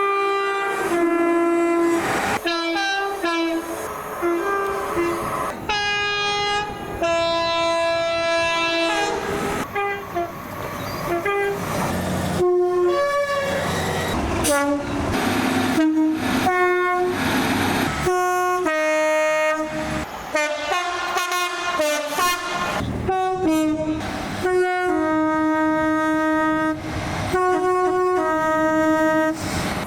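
Train horns sounding chords in a string of blasts, some short and some held for a few seconds, switching abruptly from one horn to another with a different pitch several times, over the noise of passing trains.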